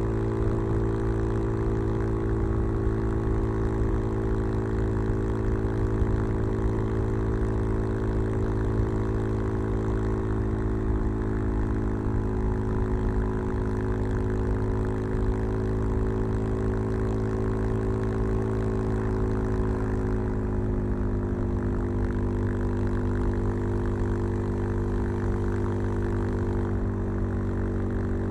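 Suzuki DR-Z 400 supermoto's single-cylinder four-stroke engine, breathing through a Keihin FCR 39 carburettor and a LeoVince V3 silencer with its dB-killer fitted, running at a steady speed. Its pitch eases down slightly twice, near the middle and about two-thirds of the way in.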